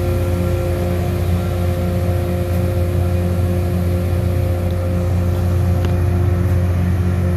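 Track maintenance train working the rails: a steady, loud mechanical drone with a strong low hum and a couple of steady higher tones, typical of a rail-grinding train as its grinding heads throw sparks.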